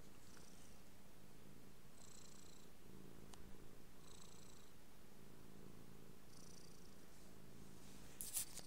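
Domestic cat purring close to the microphone, a steady low rumble, with a soft breathy hiss every couple of seconds. A brief rustle about eight seconds in.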